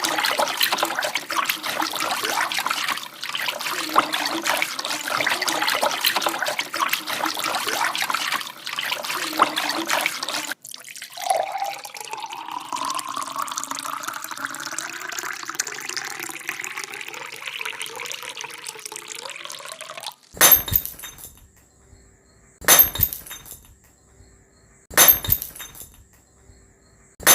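Water gushing with a loud, even rush for about ten seconds, then cutting off. Water then runs into a container, its pitch rising steadily as the container fills. After that come four sharp knocks, about two and a half seconds apart, each ringing briefly.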